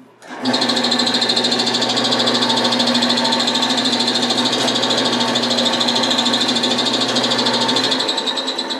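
Small wood lathe starting up about half a second in and running steadily with a high whine, while a paper towel rubs against the spinning bottle stopper blank to wipe wax out of its burned lines. The lathe is switched off near the end and begins to wind down.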